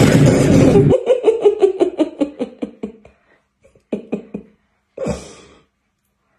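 A person laughing hard: a loud, breathy outburst, then a run of quick 'ha' pulses, about six a second, that fall in pitch and fade, followed by two short, separate bursts of laughter.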